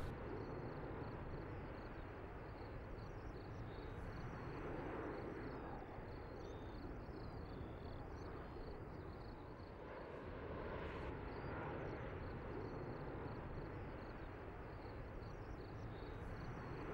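Faint steady rumbling hiss, with small high chirps repeating throughout.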